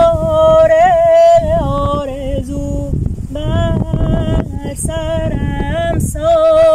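A voice singing a slow melody in phrases of long, wavering held notes, over a low rumble of wind on the microphone.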